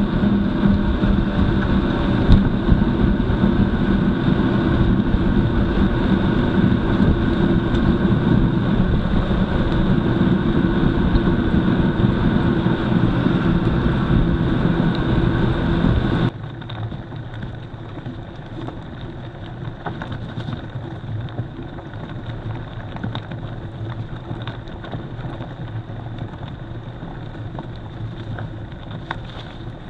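Mountain bike riding on a gravel forest road: steady tyre rumble and wind noise, with rattling from the bike. About halfway through it cuts suddenly to a quieter stretch with light clicks and rattles.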